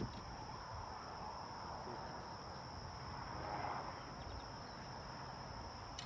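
Steady high-pitched insect chorus, one even unbroken drone, over a faint low rumble.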